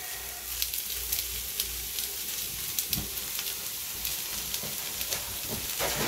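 Shredded potato pancake frying in oil in a nonstick pan: a steady sizzle with many small crackles, over a low steady rumble.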